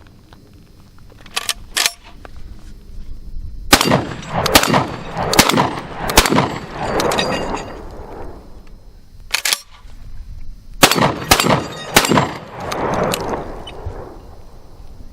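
A 12-gauge semi-automatic shotgun, the H&R 1871 Excell with its short 18.5-inch barrel, fired in rapid strings. Two lighter cracks come about a second and a half in. Then come four quick shots, a single shot, and a faster string of four near the end, each shot trailing a rolling echo.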